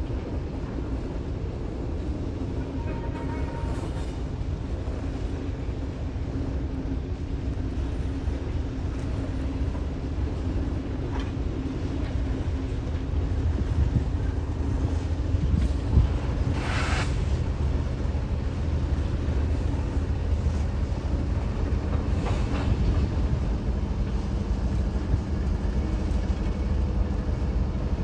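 Several CSX diesel-electric freight locomotives passing, their engines giving a steady low rumble and hum that grows slowly louder. A short, sharp higher noise cuts through about two-thirds of the way in.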